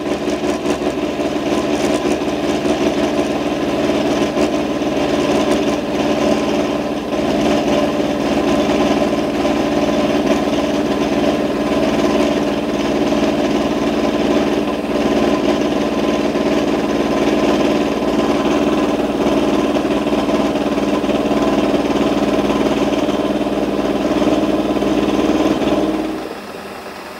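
Metal lathe spinning a 90-degree angled milling cutter as it cuts a V-shaped slot in a vise jaw: a steady machining noise with some chatter, because the work is not held rigidly. About a second before the end the cutting stops and the sound drops sharply, leaving only the lathe running.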